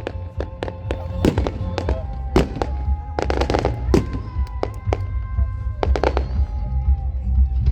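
Fireworks exploding: sharp bangs at irregular intervals, with a quick run of crackling bangs about three seconds in. Music with held notes plays underneath.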